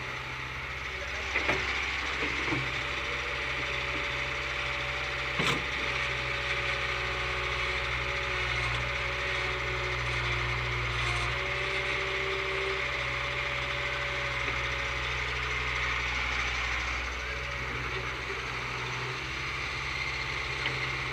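Backhoe loader's diesel engine running steadily, with a sharp knock about five seconds in.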